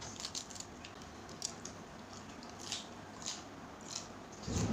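Close-miked eating sounds: a raw cabbage leaf being torn and food being chewed, with scattered short crackles. A louder dull thump comes near the end.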